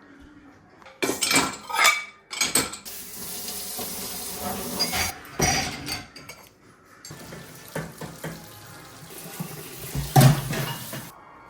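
Washing up at a kitchen sink: the tap runs in stretches while dishes and cutlery clatter against each other and the sink. Several sharp clatters come in the first few seconds, and the loudest knock comes near the end.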